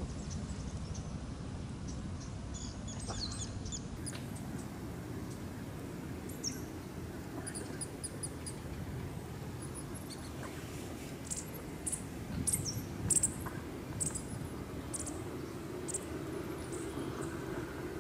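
Small birds chirping: short, high calls scattered through, coming more often in the second half. Underneath is a low, steady outdoor rumble, and a couple of louder clicks come about two-thirds of the way in.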